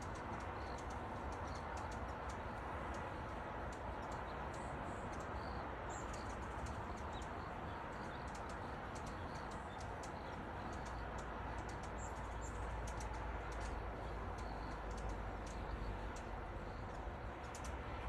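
Hummingbirds giving many quick, high chip and tick notes around a feeder, with a few short squeaky chirps, over steady low background noise.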